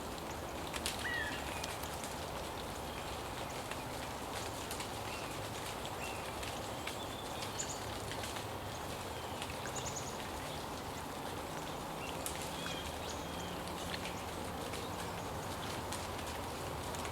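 River water flowing steadily, with short bird chirps now and then over it; one of the clearer chirps comes about a second in.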